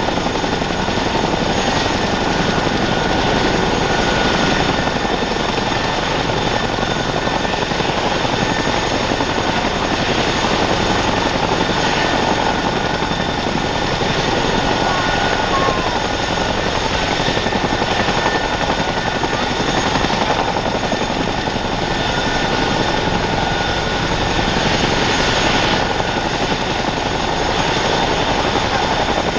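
Boeing CH-47F Chinook running loud and steady: the high whine of its two Honeywell T55-GA-714A turboshaft engines over the rush of its tandem rotors.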